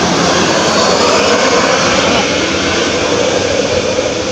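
Large tour bus passing close by: a steady, loud rush of diesel engine and tyre noise that eases slightly near the end.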